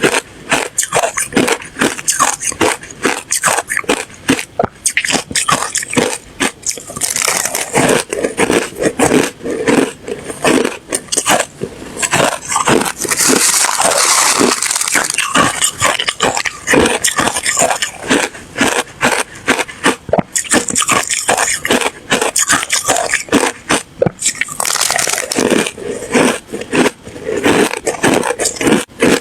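A person biting and chewing ice: a dense, irregular run of crunches and crackles, thickest around the middle and again near the end.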